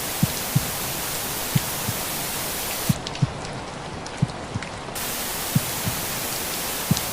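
Steady rain and white-noise hiss with a slow heartbeat underneath, low double thumps (lub-dub) about every 1.3 seconds. About three seconds in, the hiss drops away for two seconds, leaving fainter rain drops and the heartbeat, then comes back.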